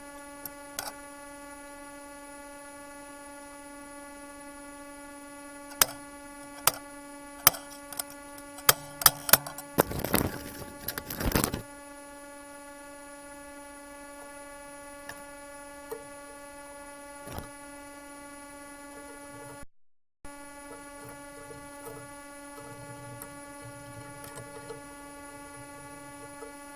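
Steady electric hum of a running shop machine, with a scatter of sharp taps and clicks and a short louder scraping burst about ten seconds in.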